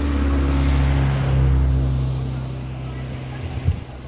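A motor vehicle's engine running close by, a steady low hum that swells about a second and a half in and then eases off, with a short knock near the end.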